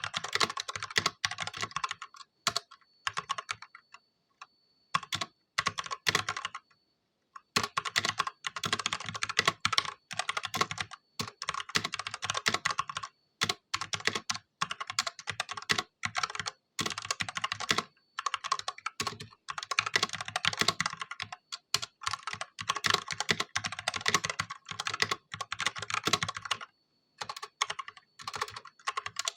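Typing on an Ajazz K870T mechanical keyboard with stock Huano red linear switches: fast runs of key clacks, broken by short pauses, with one longer gap a few seconds in.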